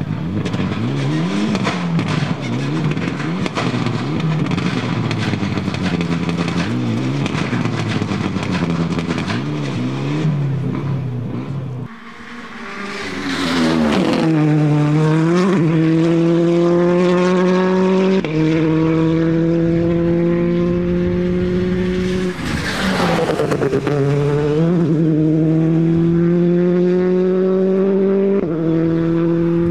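Rally cars at full attack on a tarmac stage. First an engine revving hard with quick rises and falls of pitch through corners, then a car accelerating up through the gears, its note climbing and stepping back at each upshift, with two short swells of noise as cars go by.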